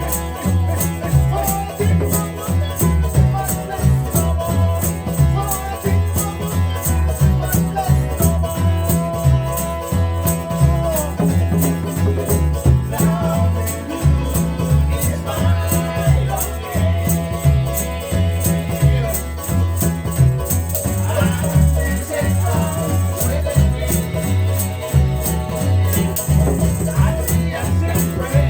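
Vanuatu string band playing: strummed string instruments over a deep, walking bass line, driven by a steady, fast shaker beat, with voices singing the melody.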